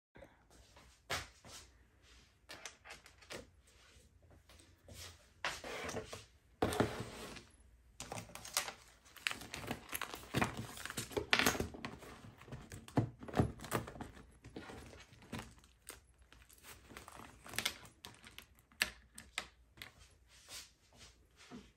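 Desk items being handled and sorted: irregular light clicks and knocks of small objects against a plastic basket and the desk, with paper and plastic packets rustling and crinkling.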